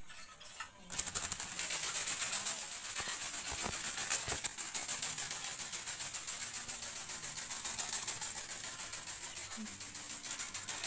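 Rubber-band-powered toy ornithopter flapping its wings in flight: a fast fluttering clatter that starts suddenly about a second in and slowly fades.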